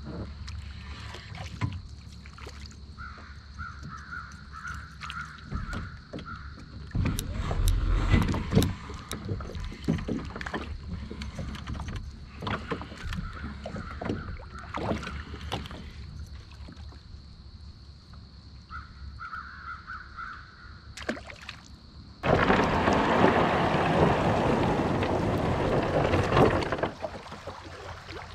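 Knocks, clunks and clicks of a fishing kayak and its gear being handled, with a bird calling in runs of short repeated notes twice. Near the end, a few seconds of loud rushing noise start and stop abruptly.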